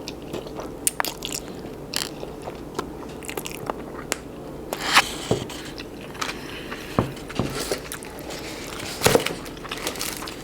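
A person chewing a mouthful of food close to the microphone, with irregular wet mouth clicks and smacks.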